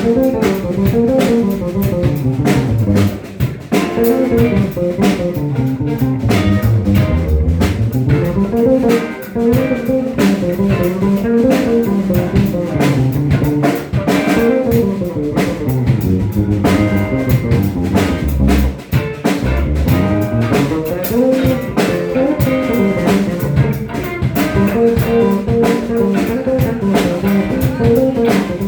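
Live band playing an instrumental groove: guitar over a repeating bass line and drum kit.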